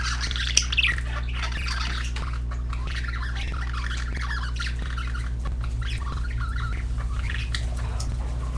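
A flock of pet budgerigars chattering, with many quick chirps and squawks and one louder squawk just under a second in.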